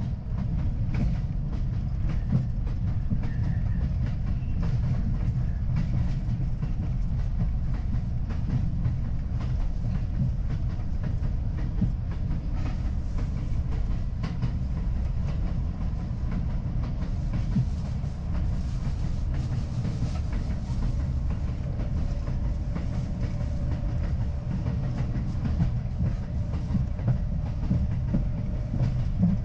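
R62A subway train running between stations, heard from inside the front car: a steady rumble of steel wheels on the rails with a running clickety-clack over the rail joints.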